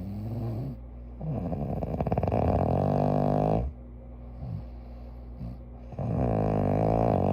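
A sleeping person snoring: two long snores of about two and a half seconds each, the first starting about a second in and the second about six seconds in, with softer breathing between them.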